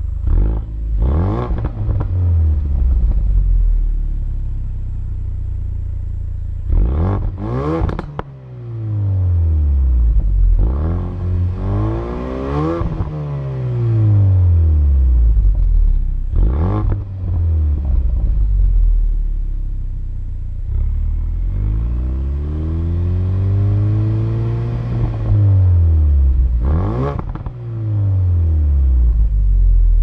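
2017 Ford Focus RS's turbocharged 2.3-litre EcoBoost four-cylinder, heard at the exhaust tips, revved repeatedly from idle. There are several quick, sharp blips and two longer revs that climb and fall back, the second held for a few seconds.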